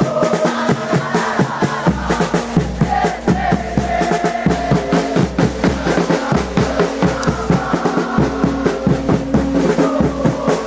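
Football supporters chanting together over a steady, fast drumbeat, with a deep bass line coming in about two seconds in.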